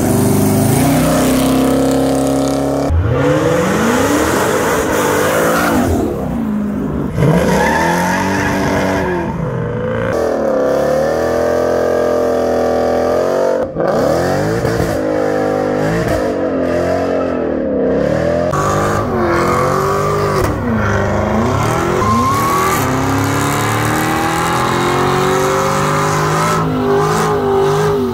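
A series of muscle car burnouts. The engines rev hard, their pitch sweeping up and down again and again over the noise of spinning, smoking rear tyres, with abrupt jumps where one burnout gives way to the next.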